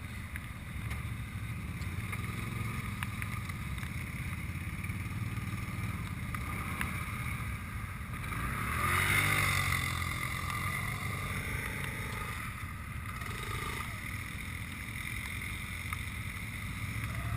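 ATV engine running steadily at low revs, with a swell of revving about halfway through.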